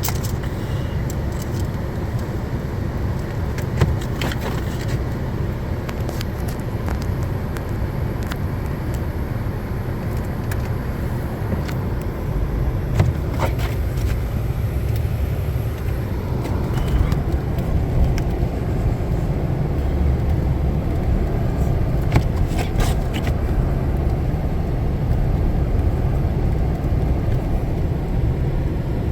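Motor vehicle, likely a four-wheel-drive, running steadily with a continuous low rumble, and a few sharp clicks or knocks scattered through.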